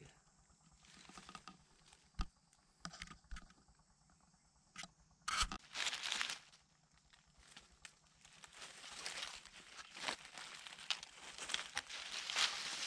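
Dry fallen leaves rustling and crackling in bursts, with a sharp knock about two seconds in and another about five seconds in; the rustling runs longer and louder in the second half.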